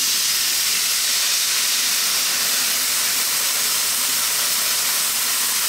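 Chicken stock with soy sauce and sugar poured into a stir-fry pan on maximum heat: a steady, loud sizzling hiss as the liquid boils off in a cloud of steam.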